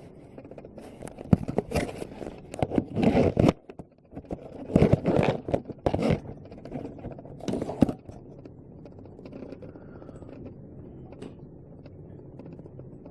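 Handling noise: scrapes and sharp knocks as tester probes and the drill's opened housing and switch are moved about for a continuity check, dying away after about eight seconds to a faint background.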